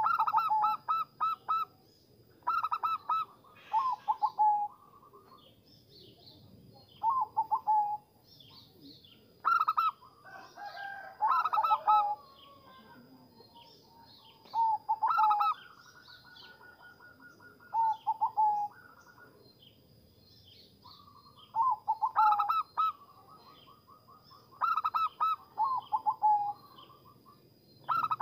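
Zebra dove (perkutut) cooing: short phrases of rapid staccato coos, repeated every two or three seconds. Around the middle there is a sliding, wavering call, and a faint steady high-pitched tone runs underneath.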